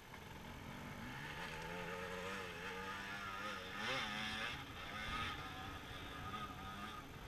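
Dirt bike engine revving on a steep hill climb, its pitch wavering up and down under load and loudest about four seconds in.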